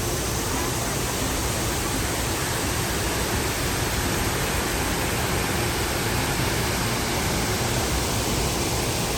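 Shifen Waterfall's falling water rushing as a loud, steady, even wash of noise that does not change.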